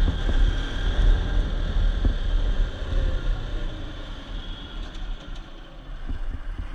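Bajaj Pulsar RS 200 motorcycle ridden slowly in traffic: its single-cylinder engine running under a heavy rumble of wind on the microphone, easing off and getting quieter after about four seconds.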